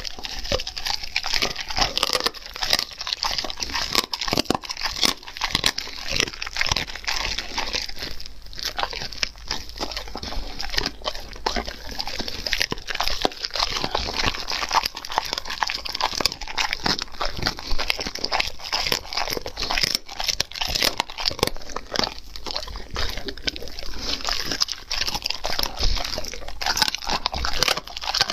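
German Shepherd dog chewing and tearing at a strip of meat, picked up by a microphone close to its mouth: a dense, unbroken run of irregular sharp bites and chews.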